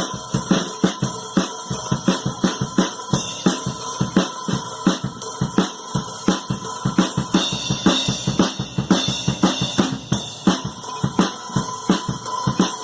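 Acoustic drum kit played: drums and cymbals struck in a quick, steady rhythm of several hits a second.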